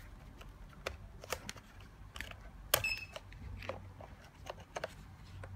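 Mercedes-Benz key fob being pushed into and pulled out of an electronic ignition switch (EIS) module: a string of sharp plastic clicks, with a short electronic beep about three seconds in. The key is inserted more than once so it syncs with the ignition switch.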